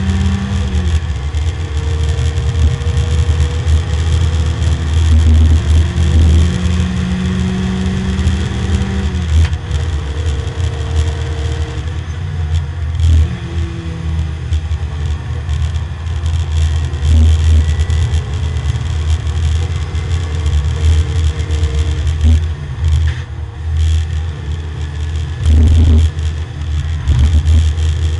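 Porsche 924 race car's four-cylinder engine running hard, heard from inside the cabin: the engine note climbs slowly and then drops sharply about nine seconds in and again around thirteen seconds, over steady road and wind noise.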